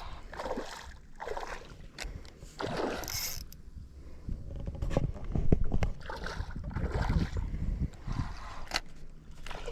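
Irregular water splashing and sloshing with low knocks on a small boat, as a small redfish is reeled in alongside.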